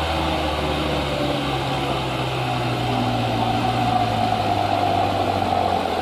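Engine of a loaded light truck running steadily as it climbs a muddy slope, growing a little louder about four seconds in as it draws near.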